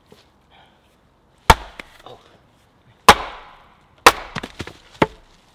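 Axe splitting firewood on a chopping block: three sharp strikes into the wood, the last followed by several lighter knocks.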